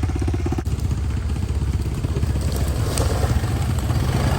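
Off-road vehicle engine running steadily. The sound changes abruptly about half a second in, from an evenly pulsing engine note to a steadier, deeper rumble, as at an edit.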